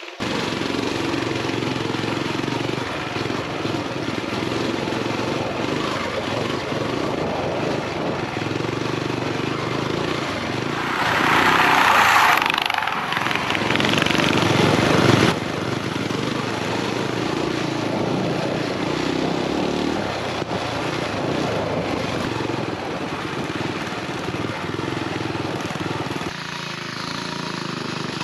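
A mini bike's small single-cylinder four-stroke engine running under throttle on a dirt trail, its steady note mixed with a rush of wind and trail noise. The rush grows louder for a few seconds in the middle.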